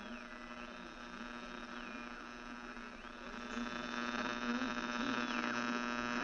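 Portable radio being tuned between stations: hiss and hum with whistling tones that hold, then slide down and back up several times, growing louder about halfway through.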